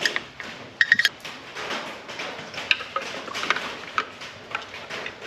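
A flat screwdriver turning the spring-loaded latches of a plastic HEI distributor cap, giving scattered small clicks and metal clinks. A quick cluster of clicks comes about a second in.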